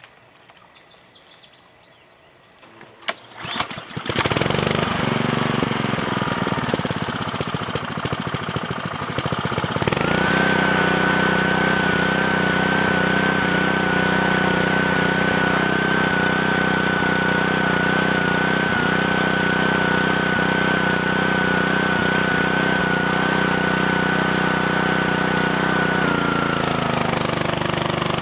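The small gasoline engine of a Pacer 2-inch water pump is pull-started a few seconds in and runs. About ten seconds in it settles into a louder, steady run with a high whine, which sags near the end as the engine slows. The pump is struggling to keep its prime.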